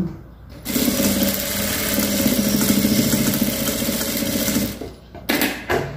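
Industrial straight-stitch sewing machine running steadily for about four seconds as it sews a side seam in soft fabric, then stopping. A couple of short sharp clicks follow near the end.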